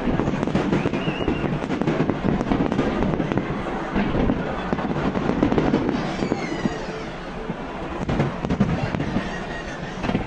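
Fireworks display: a steady barrage of shells bursting and crackling.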